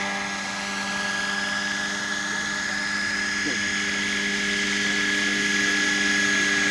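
Radio-controlled scale model helicopter, an Airwolf-style Bell 222, flying low. Its motor and rotor give a steady high whine that grows louder as it comes closer.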